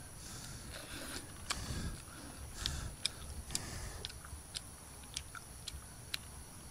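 A person eating a roasted chicken wing: biting and tearing the meat off the bone, then chewing. The chewing comes with scattered sharp, wet mouth clicks.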